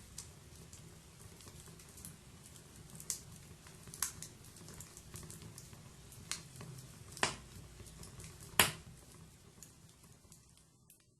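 Wood fire burning: a low steady rumble of flames with scattered crackles and sharp pops, the loudest about three-quarters of the way through. The sound fades out near the end.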